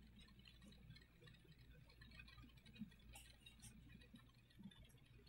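Near silence: faint low room hum with a few scattered faint ticks.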